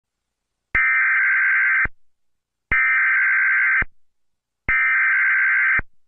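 Emergency Alert System SAME header: three bursts of digital data tones, about a second each with short gaps between them, the coded header that opens an alert.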